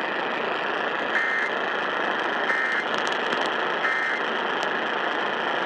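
Emergency Alert System end-of-message signal: three short bursts of two-tone digital data, about 1.3 s apart, over the steady hiss of AM radio reception. The bursts mark the end of the alert.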